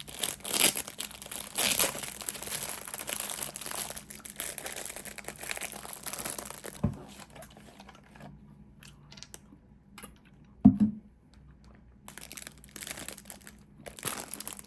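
Crinkling and rustling, as of plastic or paper being handled, in bursts that die down after about six seconds. Two short knocks cut in, the louder one near eleven seconds, followed by more rustling near the end.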